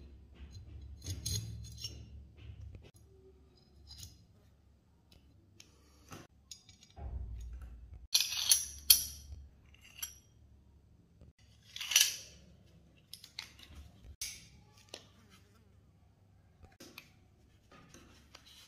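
Steel parts of an Astra 4000 Falcon pistol clicking and scraping together as the pistol is reassembled: spring, slide and barrel being fitted. A few sharper metal clicks come near the middle and about two-thirds of the way through.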